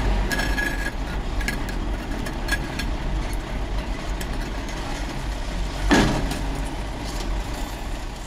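Tram wheels rolling on the rails with a steady low rumble, a few light clinks in the first seconds and one louder clank about six seconds in.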